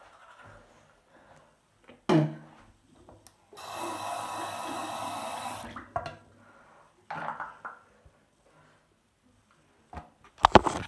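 Toothbrushing at a bathroom sink: a short loud spit about two seconds in, then the tap runs steadily for about two seconds, with a shorter splash a little later. Near the end come several sharp, loud knocks from handling the phone.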